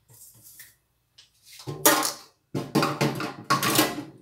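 Dishes being handled in a kitchen sink: metal bowls knocking together, with a few faint taps at first and then a run of loud clatters in the second half.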